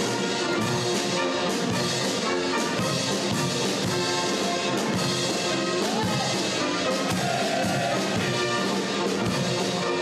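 A naval brass band, with trumpets and a sousaphone, playing a march at a steady level.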